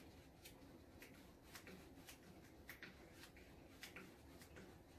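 Near silence with faint, irregular soft ticks, about one or two a second: a paintbrush dabbing and mixing acrylic paint on a palette.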